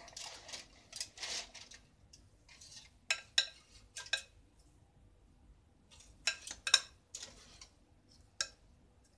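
Metal kitchen tongs clicking and clinking against a glass bowl as pieces of fish are picked out: sharp, briefly ringing clicks in small clusters. A soft rustle of aluminium foil comes first, in the opening couple of seconds.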